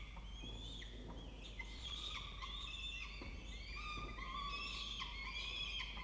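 Peregrine falcon chicks begging while being fed: many overlapping, high-pitched, wavering squealing calls, over a low steady hum.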